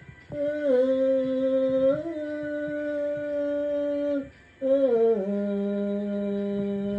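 A voice humming a wordless tune in long held notes, sliding briefly between pitches. It breaks off for a moment about four seconds in.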